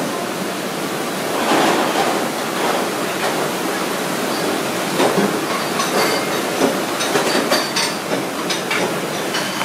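Pot of seafood soup boiling on the stove: a steady bubbling hiss, with a few light knocks as a plastic ladle stirs it.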